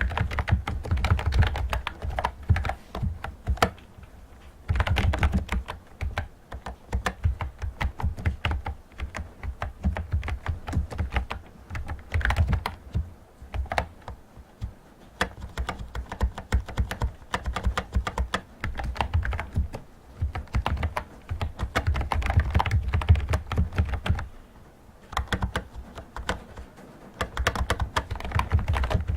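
Fast typing on a Bluetooth typewriter-style keyboard: dense runs of key clicks with short pauses between them.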